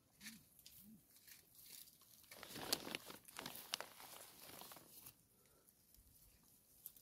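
Hamadryas baboons foraging close by: faint rustling, crackling and clicking in dry grass and litter, busiest from about two to five seconds in, with two short low grunts near the start.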